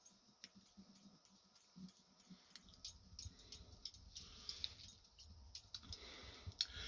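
Near silence: room tone with faint, scattered clicks.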